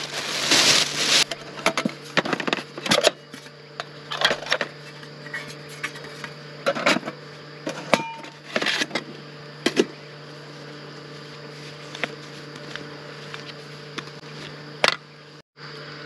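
Thin plastic bag crinkling as a large fruit is unwrapped and set on a wooden cutting board, then scattered clicks and knocks of metal cookware being handled on an aluminium camp table, over a steady hum.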